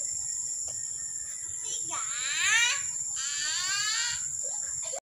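Steady high-pitched drone of an insect chorus, with children's high voices calling out from about two to four seconds in.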